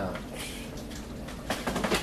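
A foil-covered baking dish is pulled out of the oven, with a brief rustle about half a second in, then a louder clatter and scrape from about a second and a half in.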